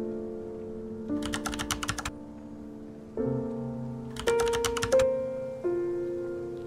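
Background music of soft, sustained piano chords that change every second or two, with two short bursts of rapid, even clicking like fast typing.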